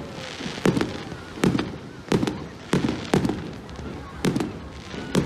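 Aerial fireworks going off in a rapid series of sharp bangs, about seven in five seconds, each dying away quickly.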